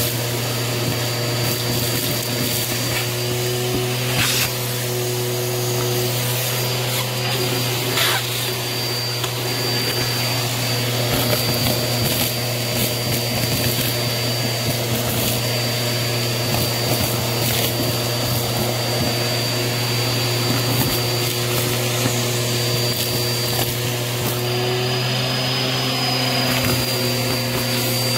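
Bissell vacuum running with its crevice tool, sucking up gritty debris and fluff, a crunchy crackle over a steady motor hum and a thin high whine. A few sharp clicks come about four and eight seconds in as bits are pulled into the tool.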